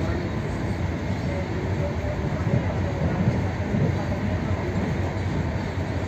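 Steady running noise of a moving passenger train, a low rumble of wheels on rails heard from inside the carriage.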